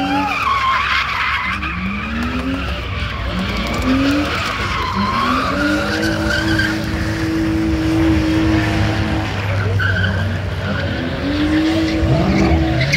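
BMW 3 Series coupe doing donuts: its engine revs up again and again and is held at high revs for a few seconds in the middle, while the rear tyres squeal and smoke as they spin on the pavement.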